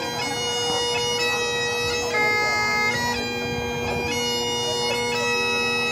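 Great Highland bagpipe playing piobaireachd: a steady drone under slow chanter notes, each held about a second before the next.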